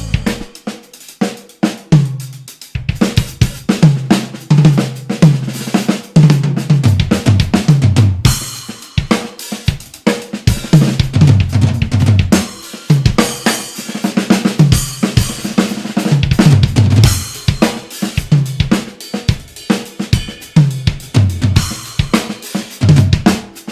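Drum kit played in a funk style: a dense run of snare, bass drum and hi-hat strokes with cymbal crashes, the cymbals ringing brighter from about a third of the way in.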